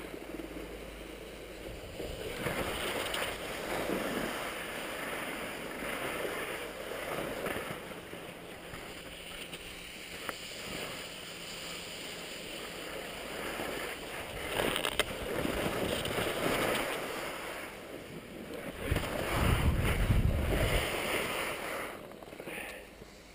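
Skis scraping and hissing over rough, crusted snow in repeated swells, with wind buffeting the microphone in a low rumble near the end.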